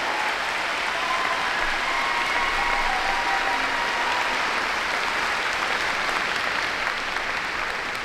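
Audience applauding, with a few voices in the crowd, tapering off near the end.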